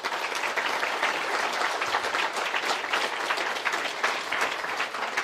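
Audience of a couple of hundred students applauding, many hands clapping at once in a dense, even patter.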